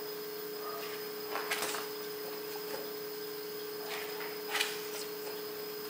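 Pages of a picture book being turned by hand: two short paper rustles, about a second and a half in and again near the end, over a steady hum.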